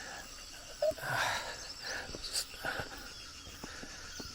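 Forest trail ambience: faint high bird chirps over a steady insect hum, with a short rustle about a second in and a few light clicks.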